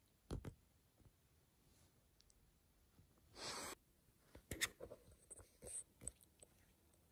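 Kitten pawing and biting at a blanket and a knit sweater: faint rustling and scratching of fabric with a few soft taps and clicks, and one brief louder rustle about three and a half seconds in.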